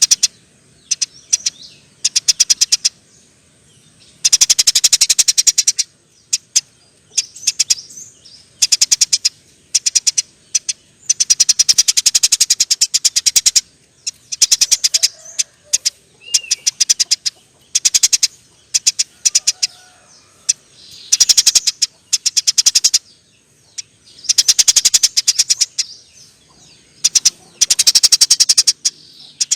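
Eurasian tree sparrow giving long, very rapid chattering trills, loud and high-pitched, in repeated bursts of about one to two seconds with short gaps and a few single chirps between.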